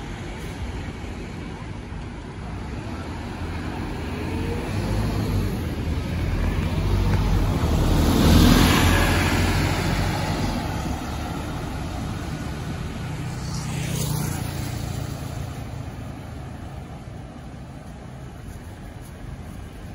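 A Scania K230UB single-deck bus's diesel engine pulls away from a stop. It grows louder as it passes, loudest about eight seconds in, then fades into the distance.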